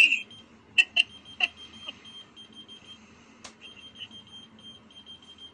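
A thin high-pitched tone sounding on and off, with a few sharp clicks about a second in and one more past the middle.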